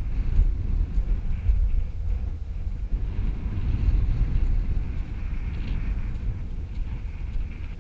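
Wind buffeting the camera's microphone: a loud, uneven low rumble.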